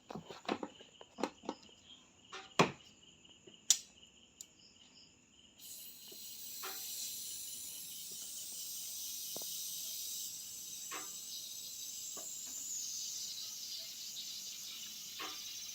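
A few clicks and knocks of handling and plugging in. Then, about five and a half seconds in, a steady high hiss starts abruptly as the Samsung CRT television is switched on.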